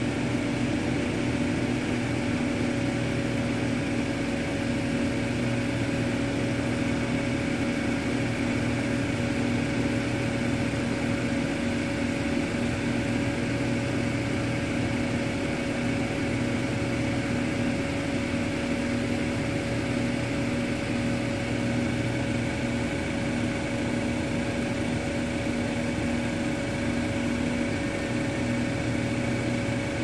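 A machine running with a steady hum made of several held tones, low and high.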